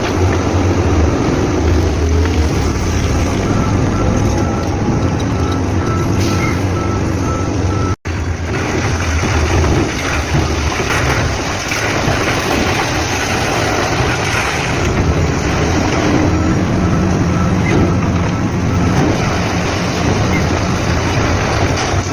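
Heavy earthmoving machinery engines running steadily with a deep hum. The sound breaks off for an instant at an edit about eight seconds in. A faint repeated high beep comes through at times.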